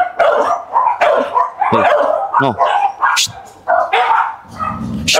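A dog-aggressive dog barking repeatedly in short, sharp barks while confronting another dog.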